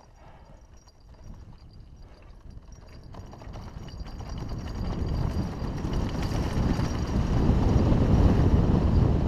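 A hardtail mountain bike rolling and rattling down a dry dirt trail, with wind rushing over the helmet-mounted GoPro microphone. The sound grows steadily louder as the bike picks up speed.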